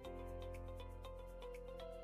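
Background music: sustained chords over a steady, light ticking beat, with the bass changing chord at the start and again at the end.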